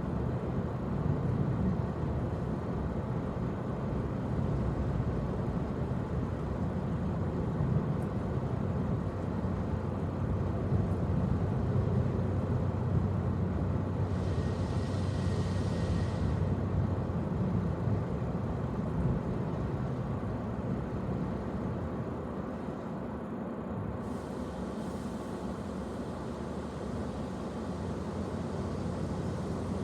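Car running with a steady low rumble and hum, and a hiss for about two seconds midway.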